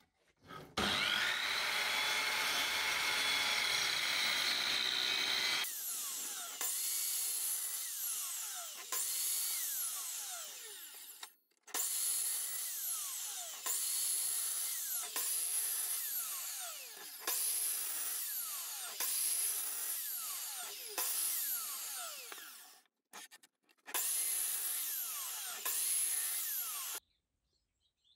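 Guild sliding mitre saw running steadily for a few seconds, then a quick run of short repeated cuts, the motor's pitch falling each time. The blade is cutting shallow grooves about a third of the way into a timber board.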